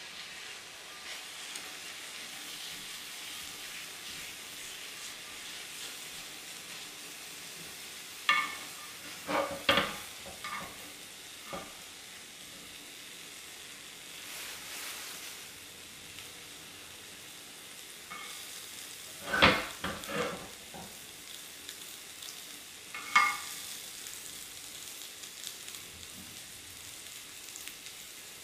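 Rolled egg for dashimaki tamago sizzling steadily in a square tamagoyaki pan over a gas burner, with a few sharp knocks as the pan and chopsticks are handled, the loudest about two-thirds of the way in.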